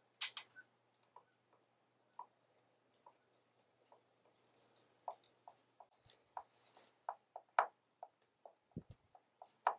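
Faint, irregular clicks and light taps of a hand screwdriver driving screws into a mounting bracket on a wooden beam, with a few sharper clicks among them.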